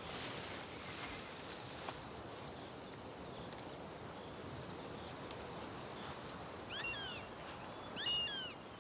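Faint outdoor ambience with a quick, even run of high short chirps, then two short animal calls that swoop up and down in pitch near the end.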